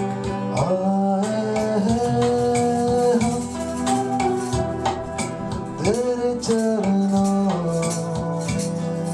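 Music: a sustained melody that slides between notes, over rattling percussion keeping a steady beat.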